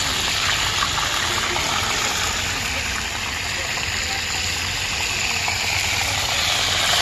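Battered crabs deep-frying in a wok of hot oil: a steady sizzle with a low, even rumble beneath it.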